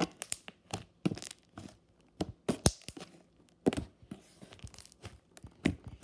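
Slime being squished and stretched by hand, giving irregular sharp, sticky pops and clicks with short quiet gaps between them.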